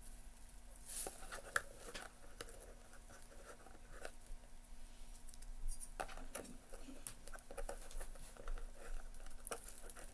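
Fingernails scratching and picking at a stuck price sticker and its gummy residue on a hard plastic doll couch: faint, irregular scratches and small clicks.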